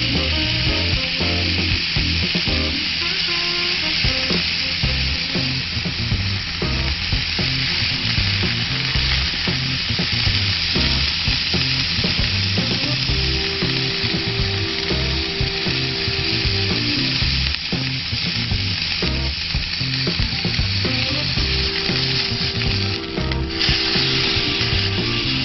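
Meat sizzling steadily on a small grill plate over a fire, under background music with held bass notes.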